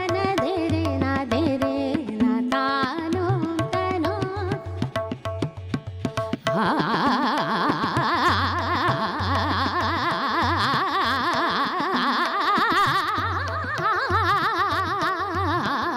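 Female Hindustani classical vocalist singing a tarana with tabla accompaniment. About six and a half seconds in, she breaks into fast, rapidly wavering runs of notes (taans) over the steady tabla strokes.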